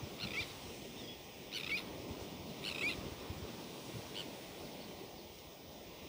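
Four short, high bird calls about a second and a quarter apart, over a steady low wash of surf and wind.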